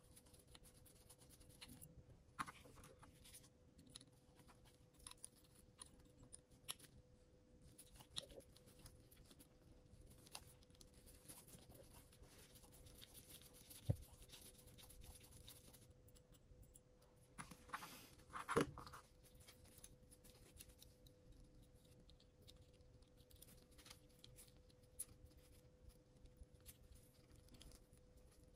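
Faint, scattered clicks, taps and scratches of small tools working on a DJI Mini 3 Pro drone gimbal during bench repair, with a sharper click about halfway through and a short run of louder scraping a few seconds later. A faint steady hum lies underneath.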